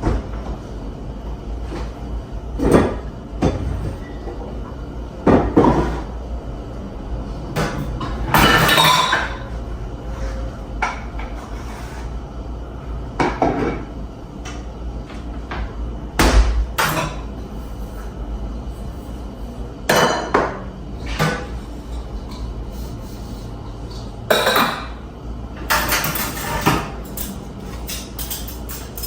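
Dishes, pots and cutlery clattering and clinking as dishes are done, with irregular knocks scattered throughout and a couple of longer rattling passages.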